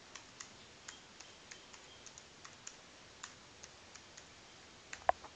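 Typing on a computer keyboard: a run of light, irregular keystrokes, with one louder click near the end.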